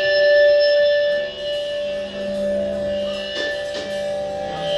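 A live band playing in a club: long held notes ring over one another, with light, irregular taps.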